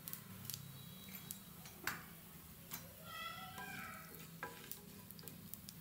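Tempering spices (chana dal, urad dal, cumin and mustard seeds) sizzling faintly in hot oil in a nonstick pan, with light clicks as a wooden spatula stirs them. A few faint high pitched sounds come in around three seconds in.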